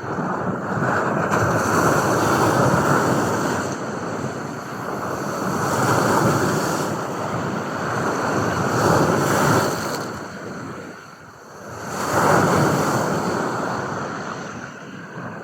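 Ocean waves washing in and drawing back, a steady rush that swells and fades every few seconds.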